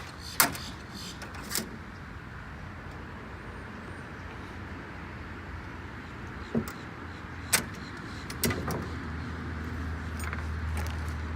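Road traffic running steadily, with a low engine hum building up near the end, and several sharp clicks and knocks on top.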